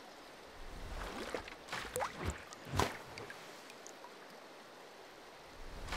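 Bubbling, gurgling water sound effect: a few short rising bloops and gurgles through the middle, fainter toward the end.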